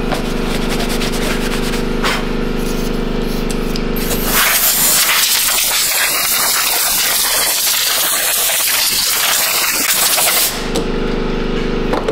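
Compressed-air blow gun hissing steadily for about six seconds, starting about four seconds in, blowing dirt off the top of the hydraulic oil tank before it is opened. A steady low hum runs before and after the blast.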